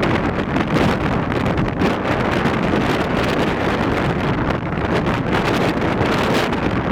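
Storm-force gale of Storm Arwen buffeting the camera microphone: a loud, continuous rumbling wind noise with gusts.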